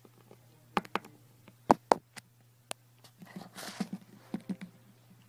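A scattering of sharp clicks and knocks, then a short hiss about three and a half seconds in, over a steady low hum.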